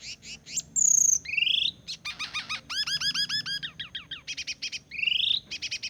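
A songbird locally called cak kelleng singing a fast, varied song of sharp chips and trills, with a rising whistled note about a second in and again near the end, and a run of hooked, repeated notes in the middle.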